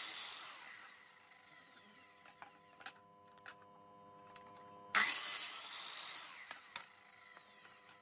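Sliding compound miter saw cutting through a softwood board: one cut already running and fading at the start, then a sudden loud second cut about five seconds in that fades away. Between the cuts the saw's motor keeps up a steady whine, with a few light knocks of the board being handled.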